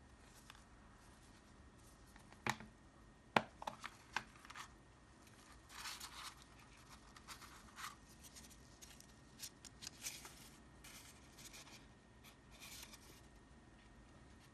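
A clear plastic pen case clicks open, with two sharp snaps about two and a half and three and a half seconds in and a few lighter ticks after them. Then comes scattered light rustling of plastic and paper as gloved hands handle the case and its paper instruction leaflet.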